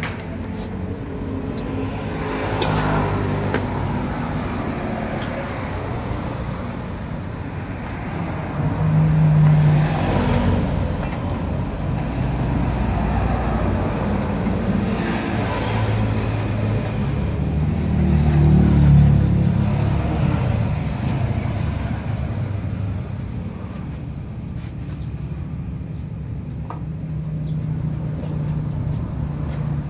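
Motor vehicle engines running, like road traffic, with a steady low drone that swells louder twice, about nine seconds in and again around nineteen seconds.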